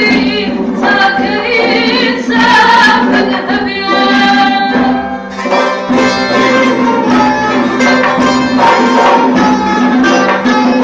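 Live Persian folk music: a woman singing, accompanied by a plucked oud and a long-necked lute.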